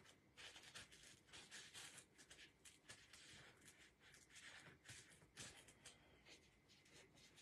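Faint, irregular rubbing and light scratching of fingers handling a fake taco shell with a styrofoam insert pressed into it.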